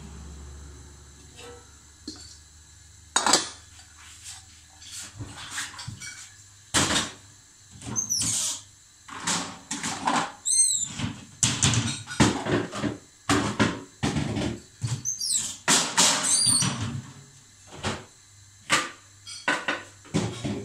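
Kitchen clatter: a string of sharp knocks and clanks of cookware, dishes and cupboard doors, sparse at first and then coming thick and fast, with a few short high squeaks in among them.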